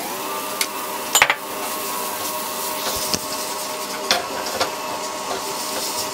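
Chopped peppers and onion sizzling in a non-stick frying pan while a silicone spatula stirs them, knocking against the pan a few times, loudest about a second in. A faint steady hum runs underneath.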